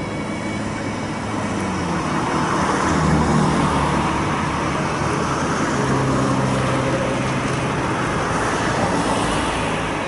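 A motor engine running close by over a steady wash of noise, growing louder over the first few seconds and easing off near the end.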